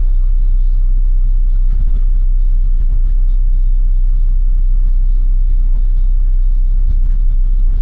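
Steady low rumble of a bus in motion, heard from inside: engine and road noise.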